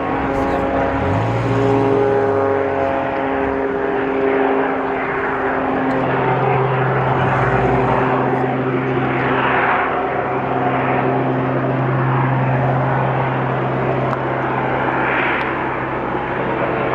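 Propeller aircraft engine droning steadily, its pitch shifting about a second in and again around six seconds in.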